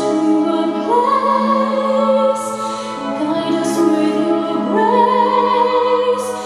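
Music: a singing voice holding long notes with vibrato, with two phrases that slide up into held high notes, over a steady low drone.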